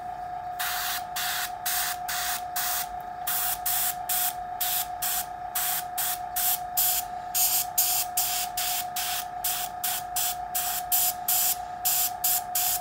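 Gravity-feed airbrush spraying paint thinned with isopropyl alcohol in short hissing bursts, about two or three a second, starting about half a second in, over a steady background tone.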